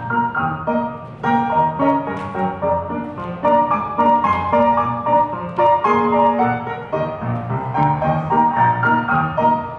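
Solo piano music with a steady beat, played as accompaniment for a ballet variation.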